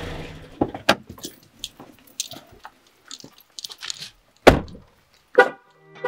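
Sound effects for an animated title card: scattered light jingling and clicking strokes, then a loud hit about four and a half seconds in and a shorter ringing hit near the end.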